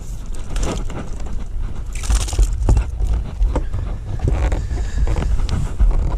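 Wind buffeting the microphone with a steady low rumble, scattered clicks and knocks, and a brief hiss about two seconds in.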